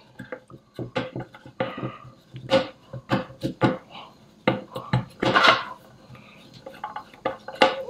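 Irregular small clicks and metal taps as hands work a grounding-wire connector loose from a metal blower housing, with the loudest clatter about five seconds in.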